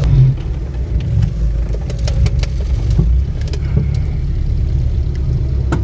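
Off-road 4x4 vehicle's engine running as a steady low rumble, with scattered short knocks and clatters over it.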